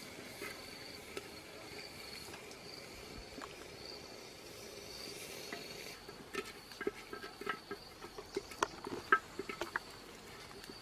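Insects chirping steadily in the background, a high on-off trill. From about six seconds in, a stick stirring grubs in a clay pot gives a run of irregular sharp clicks and taps, loudest a few seconds later.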